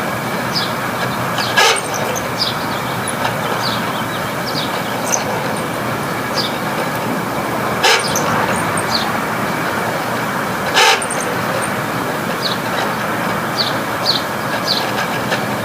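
Failing room air conditioner running with a steady rushing noise and a constant hum tone, under scattered short high squeaks. Three sharp knocks come about one and a half seconds in, around eight seconds and around eleven seconds. The owner puts the failure down to the compressor in overload and the fan blades sloshing.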